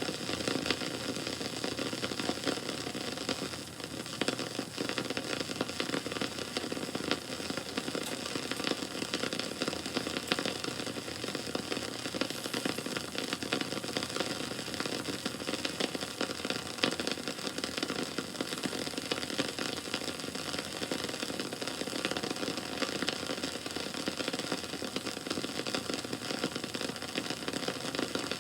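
Wood fire burning steadily with constant crackling and popping, many small sharp snaps over a soft hiss.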